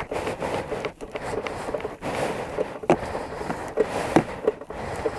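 Snowmobile running, with irregular crackling, clicks and knocks over a steady rush of noise.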